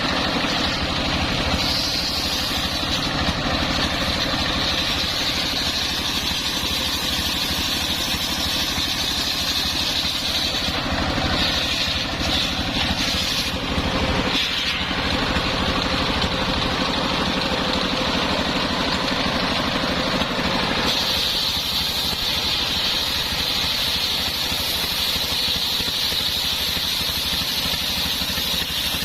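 Engine of a homemade circular-saw sawmill running steadily, with the saw sound shifting about 21 seconds in.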